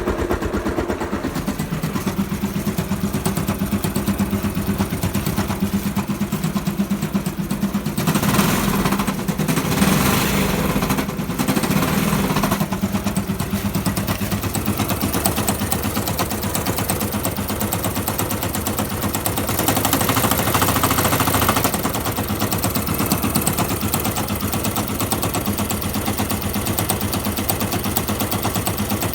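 Yamaha YBR125 fuel-injected single-cylinder engine running with a rapid, even knocking, growing louder twice for a few seconds. The knock persists after a new piston and barrel, with the clutch basket checked and showing no play; the owner suspects a bad engine.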